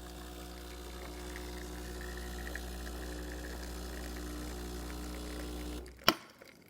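Breville espresso machine's pump humming steadily while pulling a double shot of espresso, then shutting off near the end with a sharp click.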